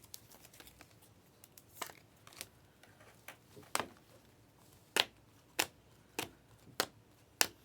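Basketball trading cards being handled and flipped one by one: a run of short, sharp card clicks, coming about every half second toward the end, over faint rustling.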